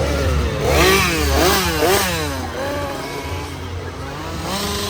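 Chainsaw engine revving hard over and over, its pitch rising and falling several times in quick succession from about a second in, then once more near the end, over a steady low running rumble.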